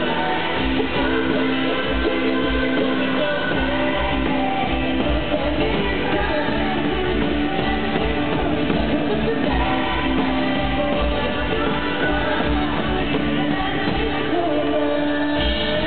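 Live country-rock band performing in an arena: a woman's lead vocal over a full drum kit, electric guitars and bass, with a steady driving beat.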